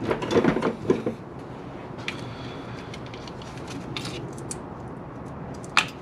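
Hands working metal battery terminal connectors onto a car battery's posts: a burst of rustling and light clatter at the start, scattered small clicks, and one sharp click near the end.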